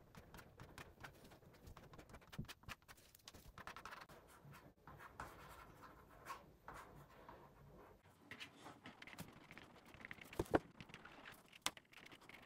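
Drawing tool scratching and tapping on a zinc lithography plate, a faint run of short strokes with a sharper tap near the end.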